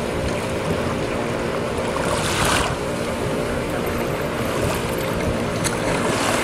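Steady wind rumble on the microphone with water splashing as a sea kayak is rolled, the loudest splash about two seconds in and another near the end.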